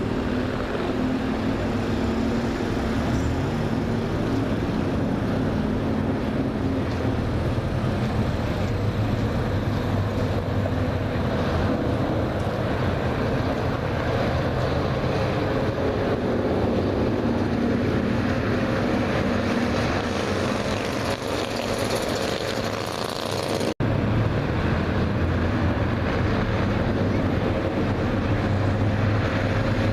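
Bandolero race car's small engine running on track at speed, its pitch rising and falling a little as the throttle changes. The sound drops out for a split second late on.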